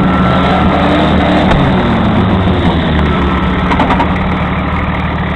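Off-road vehicle's engine running steadily at low revs.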